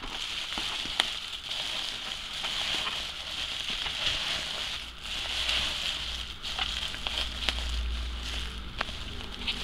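Plastic bubble wrap crinkling and rustling continuously as hands fold and press it into a bundle, with scattered sharp crackles.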